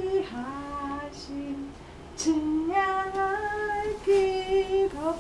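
A voice singing a slow tune of long held notes, each slid into from below, with short pauses between phrases.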